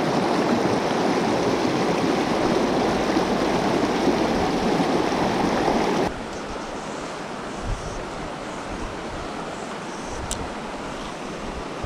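Water of a shallow mountain trout stream rushing over rocky riffles, loud and close. About halfway through it drops suddenly to a quieter, softer flow of water.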